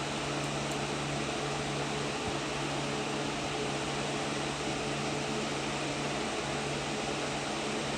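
Electric fan running steadily: an even whir with a constant low hum.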